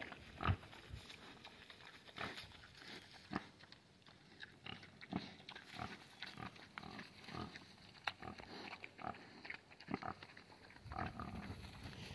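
Pig munching acorns off the ground: an irregular run of short, faint crunches as it chews and noses through the leaf litter.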